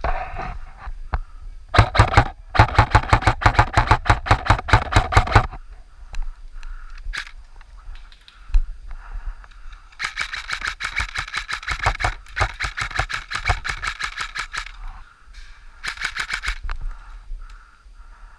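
Airsoft electric guns firing in full-auto bursts: a short burst about two seconds in, a loud burst of about three seconds right after, then a longer, thinner-sounding burst near the middle and a short one near the end.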